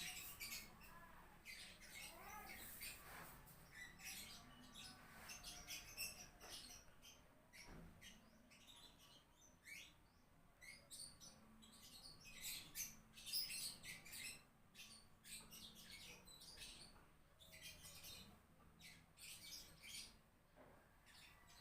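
Faint birds chirping: many short, high calls scattered throughout, with a few gliding notes in the first few seconds.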